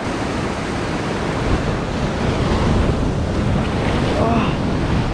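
Ocean surf breaking and washing against rocks below, a steady rushing wash of water.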